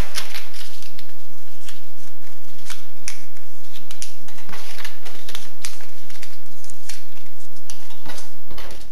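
Rustling with irregular sharp clicks, about one or two a second, over a steady low hum.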